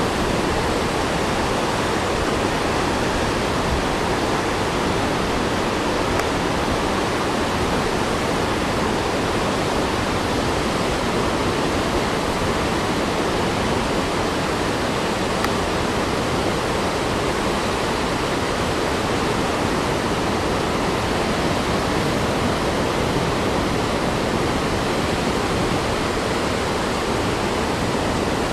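Whitewater rapids rushing through a rocky gorge: a dense, steady rush of water that does not change.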